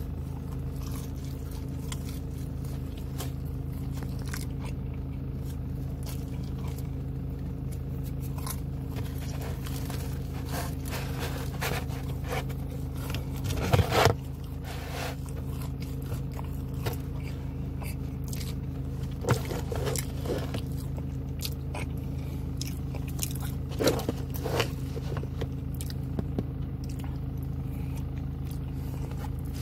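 A person biting and chewing pepperoni pizza close to the microphone, with crunches and crackles of crust; the loudest come about halfway through and twice more later. Under it runs a steady low hum.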